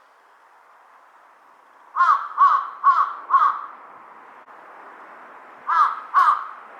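Large-billed crow cawing: a quick run of four caws about two seconds in, then two more near the end.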